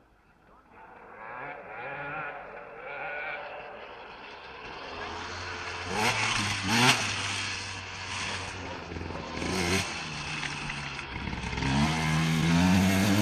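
Motocross dirt bike engine revving up and down through the gears, starting about a second in and growing louder as the bike approaches.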